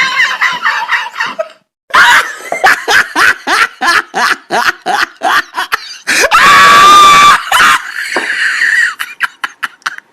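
Laughing sound effects: one laugh stops about a second and a half in, a brief silence, then another clip of rapid, high-pitched laughter in quick bursts, broken in the middle by a long, loud shriek held for more than a second.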